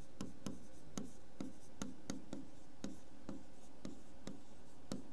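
Hand-writing on a classroom board: a run of short taps and scrapes, about four a second, as a phrase is written stroke by stroke.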